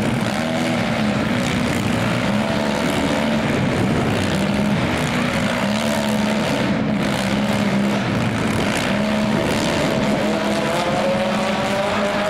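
Demolition-derby minivan engines running, with steady pitched engine notes that waver up and down; one engine rises in pitch near the end as it revs.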